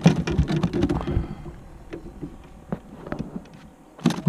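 Gear being handled in a small aluminum fishing boat, knocking and clattering against the hull and deck. A dense run of rattles and thumps lasts about the first second, then come scattered light clicks, and a sharp clatter near the end.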